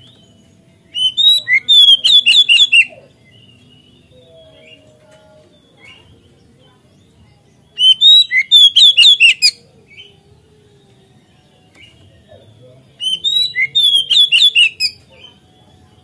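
Caged male Oriental magpie-robin in full song: three loud bursts of rapid, sharply gliding whistled notes, each about two seconds long, with pauses of several seconds between them.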